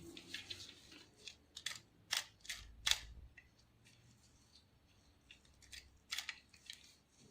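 Antique camera being handled: a series of small mechanical clicks and snaps from its parts, the sharpest about two and three seconds in and another around six seconds in.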